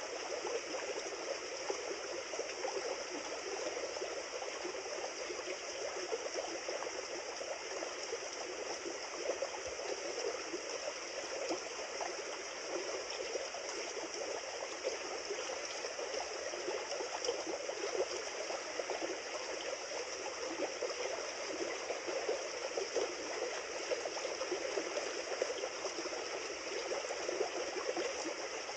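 River water flowing over stones, a steady rushing babble with fine trickling splashes.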